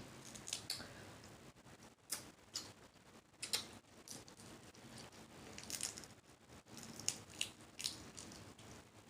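Faint, irregular clicks and small crunches of someone eating snow crab, close to the microphone.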